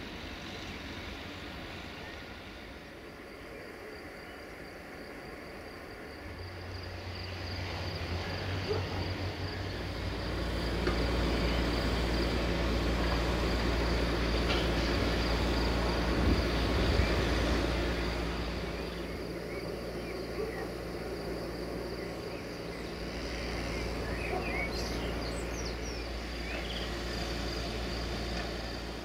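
A low engine rumble swells from about six seconds in, is loudest midway, then eases off, over a steady high insect trill. A few short bird chirps come near the end.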